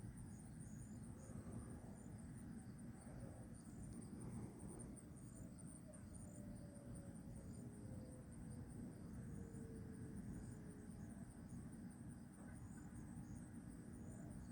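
Faint evening insect chorus, a steady high trill that pulses slightly, over a low background rumble. A faint tone falls slowly in pitch in the middle.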